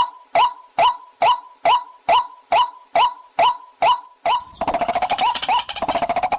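Waterhen calls repeated evenly at about two to three a second, each a short hooked note. About four seconds in, they give way to a fast rattling chatter lasting about two seconds.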